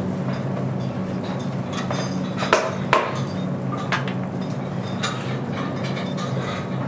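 Scattered knocks and clinks of carpentry work on a stall, the two loudest about two and a half and three seconds in, over a steady low hum.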